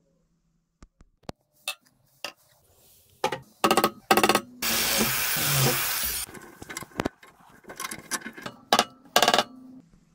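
A power tool run in a string of short bursts, with one longer run of about a second and a half near the middle, amid scattered clicks and knocks of handling.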